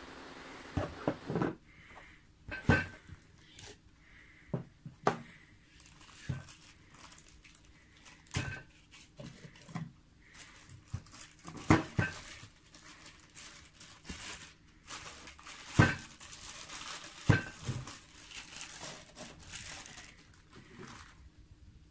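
Plastic cling wrap crinkling as it is peeled off an eyepiece, densest in the second half, with irregular sharp clicks and knocks of a plastic screw-top case being handled and set down.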